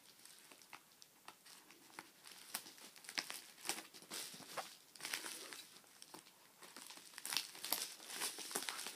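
Mailing package crinkling and tearing as it is opened, a run of irregular short crackles and rustles.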